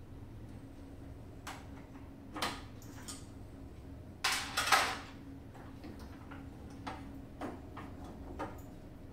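Scattered clicks and knocks of hands and tools working on the metal housing of a Phoenix Medical infant resuscitator, with a louder rattle lasting about half a second about four seconds in, over a steady low hum.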